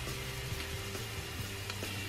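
Quiet background music with held, changing bass notes; under it, a faint steady hiss of sliced garlic just starting to sizzle in olive oil.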